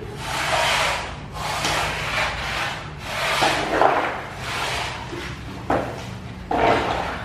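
A shovel scraping wet flood mud across a tiled floor in repeated strokes, each about half a second to a second long, with two sharper knocks near the end.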